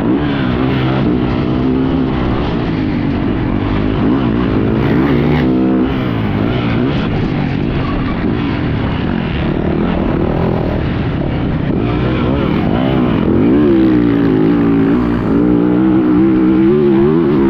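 Yamaha YZ450 motocross bike's single-cylinder four-stroke engine being ridden hard on the track, its pitch climbing and dropping again and again as the throttle is opened and shut.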